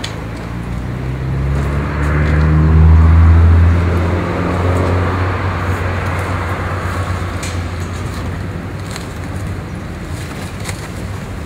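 A heavy vehicle passing close by: a low engine drone that swells to its loudest about three seconds in and then slowly fades, with a few faint clicks and knocks over it.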